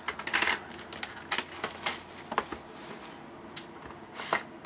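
Sealed hockey card box and its packaging being handled and opened by hand: irregular crisp clicks, taps and rustling scrapes of cardboard and wrapper.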